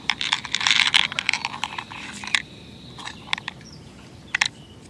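Small clicks and rattles of fingers working a plastic split-shot box and picking out a lead shot: a quick cluster of clicks in the first second, then a few single clicks.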